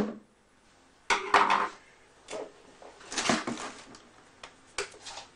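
Clattering and knocking of a speaker woofer and the hard plastic baffle of the speaker cabinet as the driver is handled and set down. It comes in a few separate bursts, with a couple of sharp clicks near the end.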